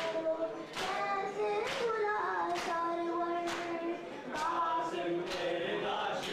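A solo voice chants a noha lament, with a mourning crowd's chest-beating matam striking in unison about once a second beneath it.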